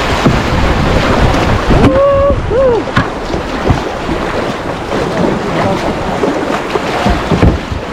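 Rushing river water splashing around a kayak, with wind buffeting the microphone. A brief wavering call, perhaps a voice, comes about two seconds in.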